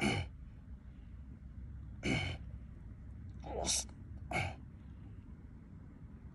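Four short, breathy bursts from a person, each dropping quickly in pitch, like sharp exhalations or sniffs, over a steady low rumble.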